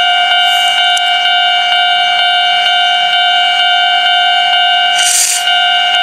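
Japanese level-crossing warning bell ringing steadily, a repeated electronic clang about twice a second, signalling that a train is approaching. A brief hiss sounds about five seconds in.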